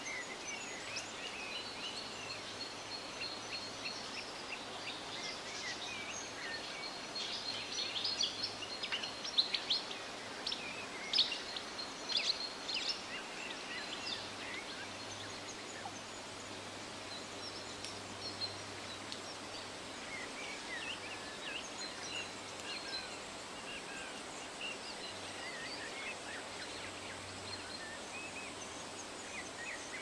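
Shallow forest stream flowing steadily over rocks, with several songbirds chirping and singing over it; a flurry of louder chirps comes about a third of the way in.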